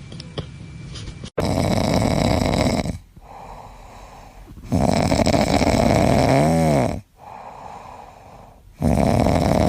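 A pet snoring in its sleep: three loud snores about three and a half seconds apart, with quieter out-breaths between them.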